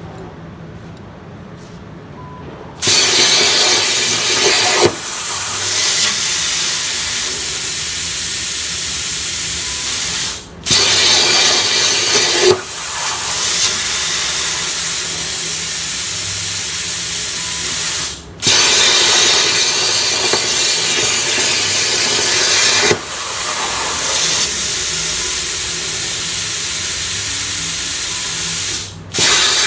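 CNC plasma torch cutting thin sheet metal: a loud, steady hiss of the air plasma arc that starts about three seconds in. The hiss cuts out briefly three times as the torch stops between cuts and re-pierces, and each restart is louder for a couple of seconds.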